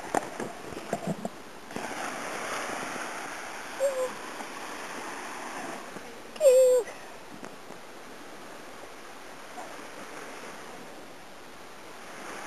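Sea surf washing on a beach in a steady, even rush. A few sharp knocks come in the first second or so, and two short pitched calls follow, about four and six and a half seconds in, the second louder.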